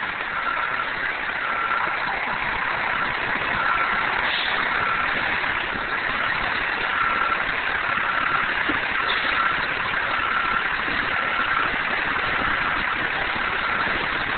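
Tow truck engine idling amid steady street noise, with a high electronic beep repeating about once a second.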